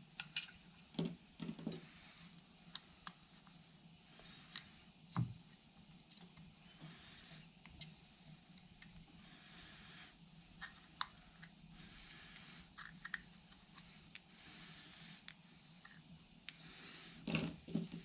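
Scattered light clicks and taps of small metal parts being handled, the rollers and broken H-clips of a front differential's sprag clutch, over a faint hiss.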